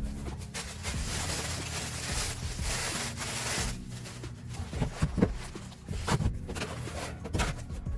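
Packaging being handled: a long stretch of rubbing and sliding, then a few light clicks and taps in the second half.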